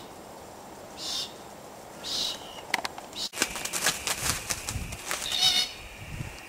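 Black cockatoos calling: short, high calls about a second apart. From about three seconds in, a stretch of crackling and knocking noise, with one more call near the end.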